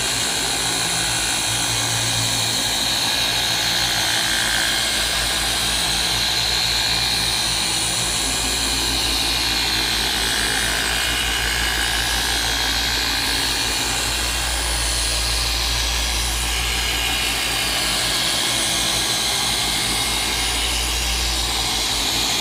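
Rupes dual-action random orbital polisher running continuously, its motor whine and pad hiss rising and falling slightly in pitch as it is worked across the car's clear coat. It is polishing out swirls and scratches in a paint correction.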